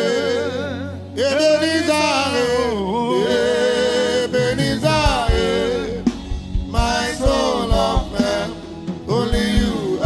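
A worship song: a voice singing long, wavering notes over instruments, with a drum beat coming in about halfway.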